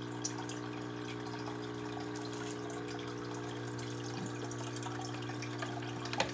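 Aquarium filter running: a steady trickle of water over a low, even motor hum. A single light knock near the end.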